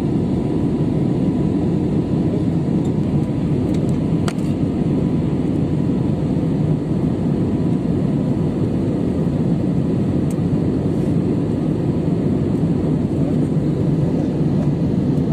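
Steady low rumble of a jet airliner's cabin in flight: the engines and the air rushing past the fuselage, with a faint click about four seconds in.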